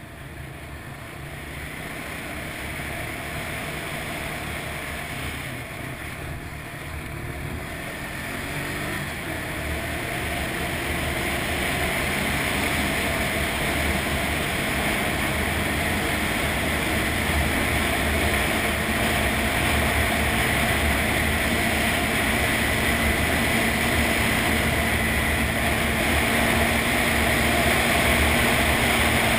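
ATV engine speeding up, getting louder and rising in pitch over the first ten seconds or so, then running steadily at speed.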